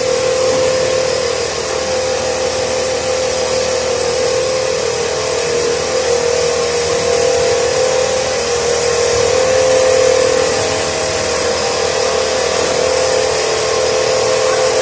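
Automatic filter-bag tubing and sewing machine line running: a steady mechanical hum and rush with a constant whine over it.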